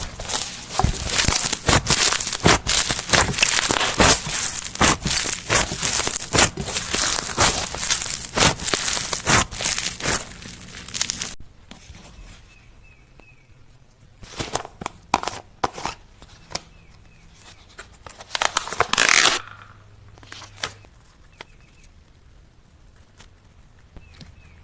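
Slime being squeezed and worked by hand, making dense crackling, popping clicks for about the first eleven seconds, then scattered pops and one short louder squish about three-quarters of the way through.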